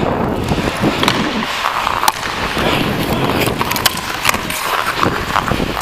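Ice hockey skates scraping and carving on the ice, with several sharp clacks of hockey sticks on the puck and against each other from about two seconds in.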